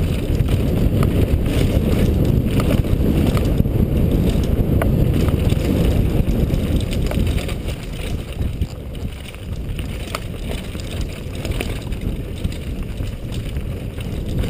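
Wind buffeting a helmet-mounted camera microphone over the rumble and rattle of a freeride mountain bike descending fast over a rough dirt trail, with scattered sharp knocks from the bike. The rush eases a little about eight seconds in.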